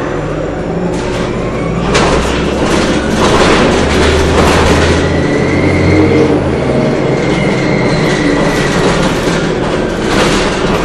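Interior of a Orion VII diesel-electric hybrid city bus under way: steady running rumble from the drivetrain and road, with clattering knocks from the body and fittings over bumps, and a thin high whine partway through.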